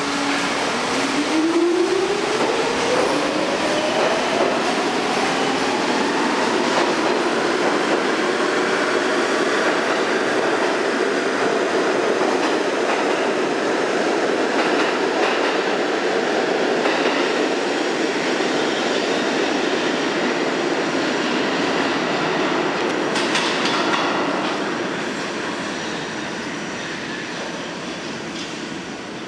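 R46 subway train pulling out of the station. The motor whine rises in pitch over the first several seconds as it accelerates. The cars then rumble and clatter past over the rail joints, fading away over the last few seconds as the train leaves.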